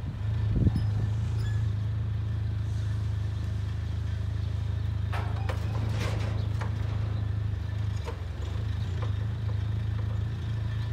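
Forklift engine running steadily, with a few knocks and clanks: a loud one about a second in and a cluster about halfway through.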